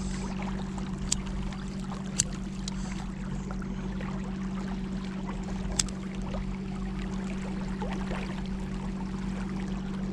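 A boat moving on river water: a steady rush and splash of water with a constant low hum underneath, and a few sharp knocks or clicks.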